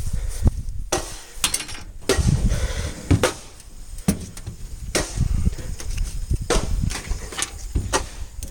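Parts of a microwave oven being beaten: a run of hard knocks, irregularly spaced about a second apart.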